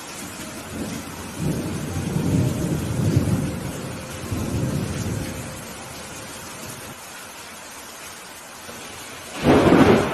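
Steady rain with thunder: a low rolling rumble swells and fades over the first few seconds, then a sudden loud crack of thunder comes near the end.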